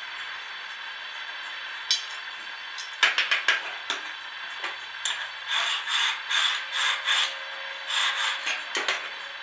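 A hand tool being worked: a single click, then a quick run of clicks, then several short scraping strokes in a row, over a steady hiss.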